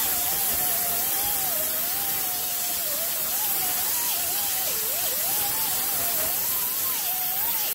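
3-inch grinder with a Roloc disc grinding down damaged fiberglass: a steady hiss under a whine whose pitch wavers up and down as the disc is pressed into the work.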